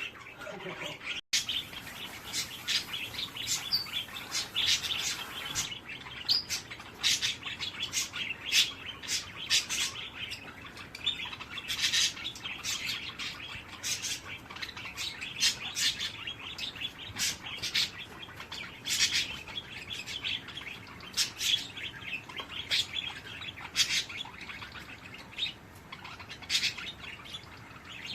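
Small birds chirping: many short, high chirps in quick succession, with a brief break in the sound about a second in.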